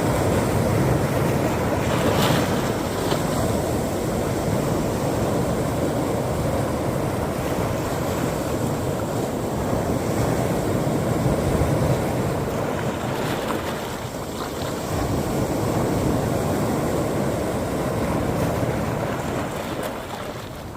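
Sea waves breaking and washing on the shore, the surf swelling and easing in turn, with wind buffeting the microphone.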